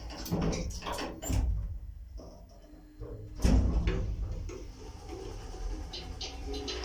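400 kg passenger elevator: the sliding car doors finish closing with a few clicks and knocks, then after a short lull a loud clunk about three and a half seconds in as the car starts off, followed by a steady low hum of the car travelling.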